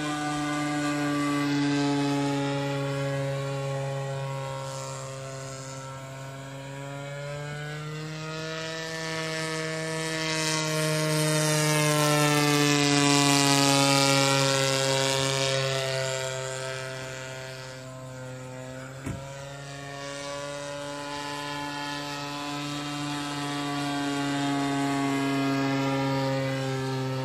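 RC model airplane's motor and propeller running steadily in flight. Its pitch and loudness swell and fade as it makes repeated passes, with a short click about two-thirds of the way through.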